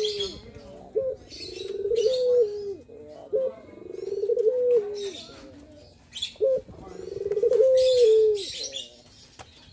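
Male ringneck dove (puter) singing its manggung coo: a short note followed by a long, drawn-out coo that rises slightly and drops at the end. The call comes three times, about every two and a half seconds.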